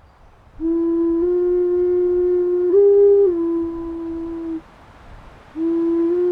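Background music: a slow melody of long held notes on a flute-like instrument, with a short pause about two-thirds of the way through before the phrase begins again.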